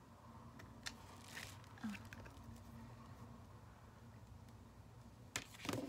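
Faint handling noises from a nail stamping plate being picked over: a few light clicks and rustles over a low steady hum, with a louder rustle near the end.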